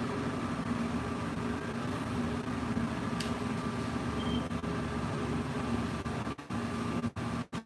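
Steady low background hum with a faint constant tone. It is broken by a few brief, sudden dropouts near the end.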